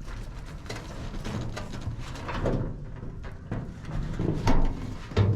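Knocks and scuffs from the removed steel truck hood being carried, with a couple of louder thumps near the end.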